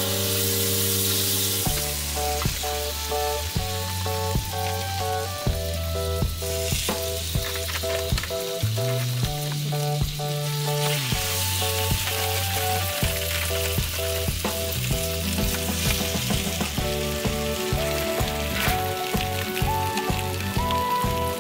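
Butter and egg-soaked bread sizzling in a small square frying pan, with scattered small pops. Background music with held notes and a bass line plays throughout.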